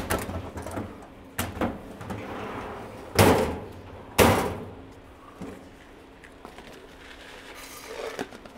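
Stainless steel sliding cabinet door slid along its track and banging against its stop, with two loud bangs about a second apart near the middle and lighter knocks around them.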